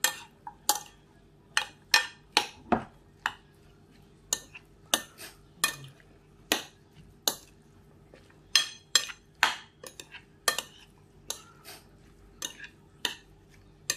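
Metal spoon clinking against a glass mixing bowl as chopped vegetable salad is tossed: sharp, irregular clinks about one or two a second.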